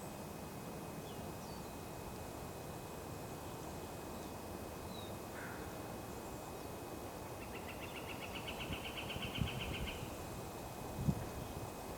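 Outdoor background noise with a few faint, scattered bird chirps. Past the middle, a rapid high trill of about ten pulses a second runs for roughly two and a half seconds. A couple of brief low thumps come near the end.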